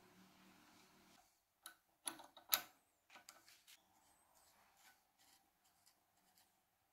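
Hand screwdriver turning a small slotted steel screw into a padlock body. A few sharp metallic clicks come about two seconds in, then faint intermittent scraping and ticking as the screw is driven.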